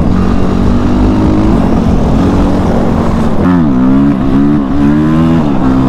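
Dirt bike engine pulling hard under wind rush. About three and a half seconds in, its pitch dips and climbs again in several swoops as the rider works the throttle and lifts the front wheel into a wheelie.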